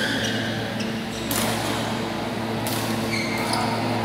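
Badminton rally: rackets striking the shuttlecock a few times and shoes squeaking briefly on the court floor, over a steady hum in a large hall.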